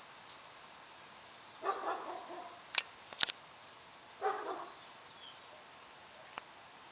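A dog barking twice, about two and a half seconds apart, with two sharp clicks between the barks.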